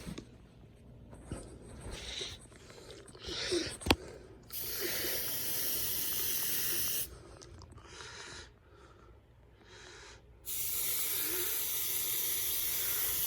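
Aerosol smoke-detector test spray hissing from a can in bursts: one long burst about four and a half seconds in, a short one near eight seconds, and another long one from about ten and a half seconds. A few light handling knocks and a sharp click come before them. No alarm sounds in response: the smoke alarm is failing its test.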